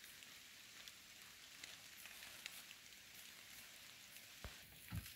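Near silence: faint steady high-pitched hiss of outdoor ambience with a few scattered faint ticks, and a couple of soft low thumps near the end.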